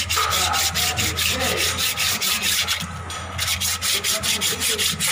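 Fast, even rhythmic scraping, about five or six strokes a second, with a steady low hum underneath, in an engine workshop.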